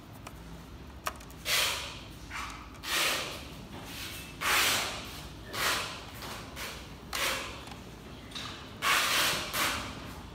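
Breathing through the nose close to the microphone: short hissing rushes about every second, with one sharp click about a second in as hands work at the projector's mainboard and cables.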